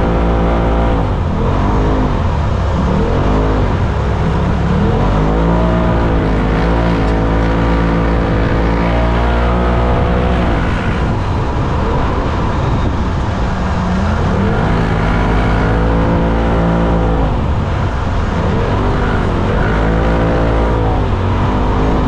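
Turbocharged Polaris RZR side-by-side engine under hard throttle, its pitch rising and falling again and again as the throttle is worked, over a steady low rumble.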